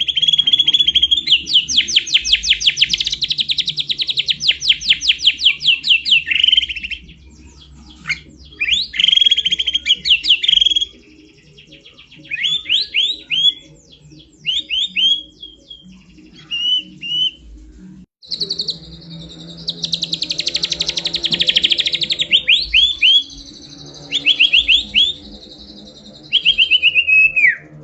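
A songbird singing loud, high-pitched rapid trills and short repeated chattering phrases, in bouts broken by brief pauses, with a long trill near the start and another about two-thirds through.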